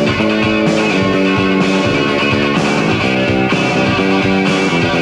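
Rock music with guitar: sustained chords changing about once a second over a steady beat.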